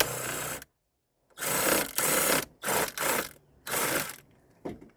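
Socket ratchet wrench clicking through a series of short back-and-forth strokes with brief pauses between them, turning the 10 mm nuts that hold a blower motor housing.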